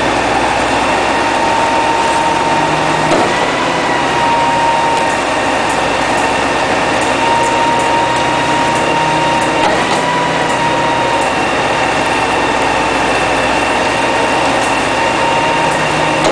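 Concrete pump truck running steadily as it pushes concrete through the boom hose, engine noise with a steady high whine over it.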